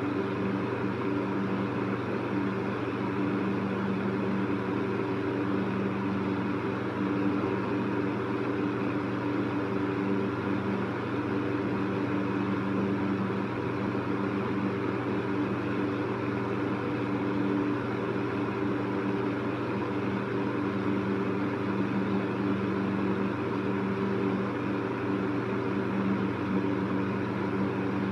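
Electric fan running steadily: a low motor hum with a few steady tones under an even rush of moving air.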